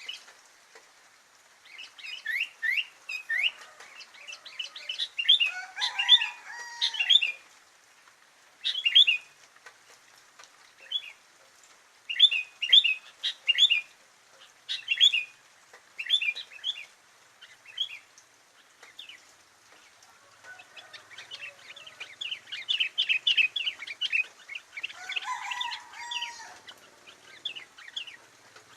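Sooty-headed bulbul (kutilang) singing: bursts of quick chirping phrases with short pauses between them, a few lower notes mixed in.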